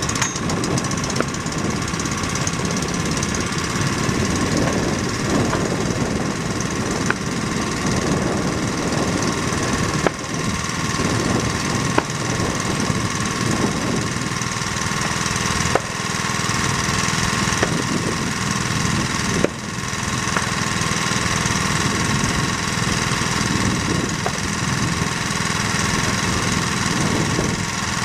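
Pulse jet engine of a control-line speed model running steadily on the ground at full power, a loud continuous buzzing drone, with a few brief dips in level.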